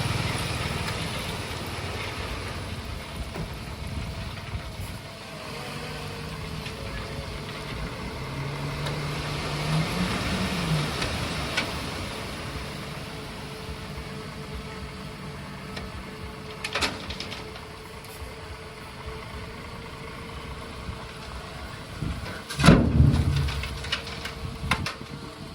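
Heavy truck engine running, its pitch rising briefly about ten seconds in. A sharp knock comes past the middle, and a louder cluster of bangs a few seconds before the end.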